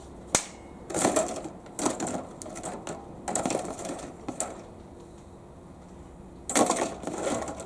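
Small metal workshop parts being handled: a sharp click, then several separate bouts of clicking and clattering.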